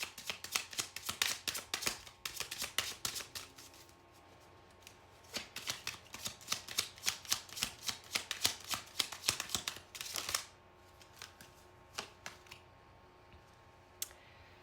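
Tarot cards being shuffled: two long runs of rapid flicking clicks, about four and five seconds each, followed by a few separate taps near the end.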